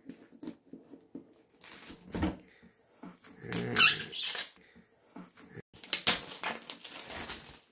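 Cellophane shrink-wrap being peeled and pulled off a hardcover book: unpleasant crinkling and squeaky stretching of the plastic film, in irregular spurts, loudest a little before the middle and again about six seconds in.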